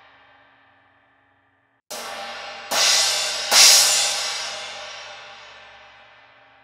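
16-inch Sabian HHX Evolution O-Zone crash cymbal, repaired by widening one of its holes to cut out a crack. A ring fades to silence, then about two seconds in the cymbal is struck three times in quick succession, the third hit loudest, and its wash decays slowly.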